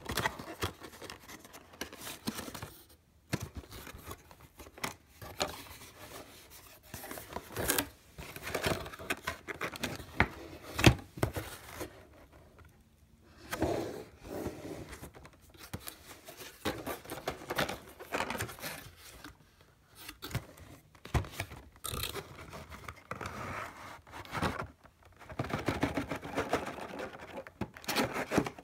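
A cardboard box being opened and handled by hand: irregular scraping, sliding and knocking of cardboard flaps and the inner insert, with short pauses and a denser rustling near the end.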